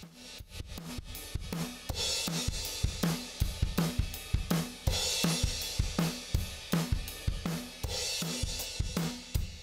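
Recorded drum kit groove: kick, snare and hi-hat in a steady pattern, with a cymbal crash about every three seconds. It is the drum track used to demonstrate the elysia xpressor 500 compressor.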